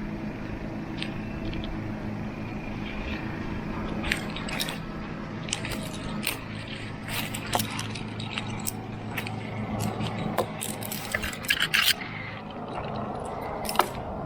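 Climbing gear scraping and clicking against tree bark in a string of short irregular scrapes and knocks, busiest near the end, over a steady low hum.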